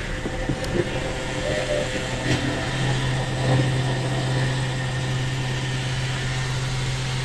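Fuel dispenser pump running with a steady hum while petrol is pumped through the nozzle into a dirt bike's tank.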